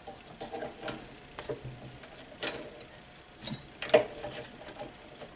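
Scattered light metallic clicks and ticks, with three sharper knocks about halfway through, from tools and a metal part being handled at a workbench.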